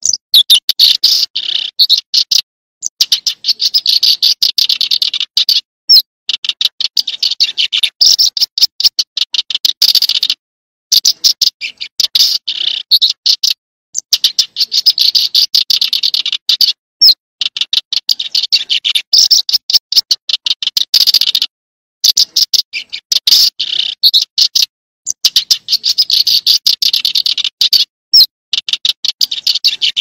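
Small songbird singing: fast runs of sharp, high repeated notes in bursts of one to four seconds, broken by short silent gaps.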